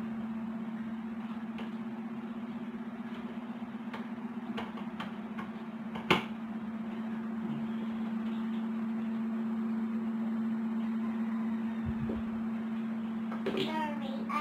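Electric fan running with a steady hum. A few light clicks, then one sharp click about six seconds in, as cables are plugged into a power strip.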